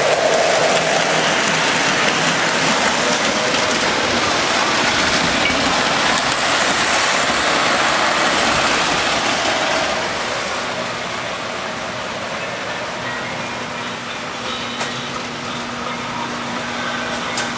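Toy electric trains running on the layout's track: a steady rolling noise that eases off about ten seconds in, after which a low steady hum remains.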